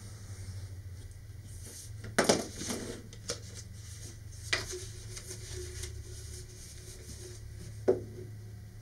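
Light handling sounds of a paper wrap being trimmed with a hobby knife along a steel ruler on a cutting mat, then lifted and wrapped around a cardboard tube: a few sharp taps and paper rustles, the loudest about two seconds in, over a steady low hum.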